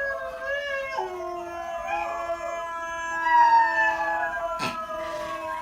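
A puppy howling along with dog howls played from a video: several long howls overlapping, held and sliding slowly down in pitch. A single sharp click a little under a second before the end.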